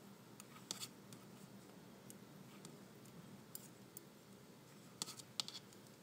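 Knitting needles clicking and scraping faintly as stitches are knitted, a few light clicks a little before a second in and again about five seconds in, over quiet room tone.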